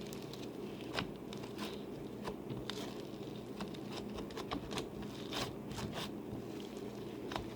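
Cloud slime mixed with instant snow being folded and kneaded by hand, giving irregular sticky clicks and crackles.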